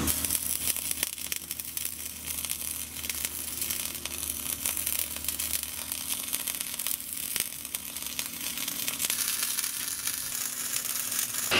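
Wire-feed arc welding on steel plate: the arc strikes at the start and then crackles and sizzles steadily as a bead is run.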